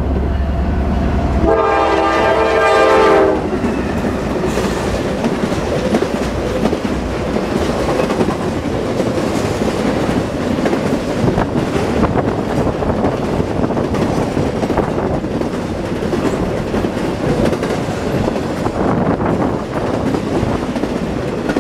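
Norfolk Southern intermodal freight train passing close by: the lead diesel locomotives rumble up and sound one horn blast of about two seconds, starting about a second and a half in. Then the steady rumble and clickety-clack of double-stack container and trailer cars rolling past.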